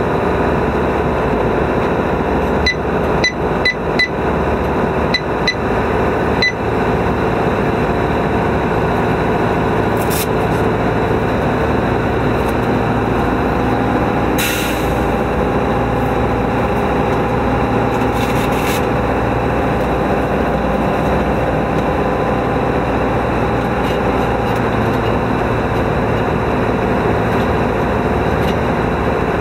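Fire engine driving at speed, heard from inside the cab: a steady engine and road noise. A few sharp clicks come in the first several seconds, and a short hiss about fourteen seconds in.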